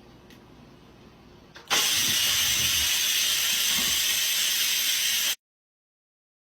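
A loud, steady hiss starts suddenly about two seconds in and cuts off abruptly some three and a half seconds later.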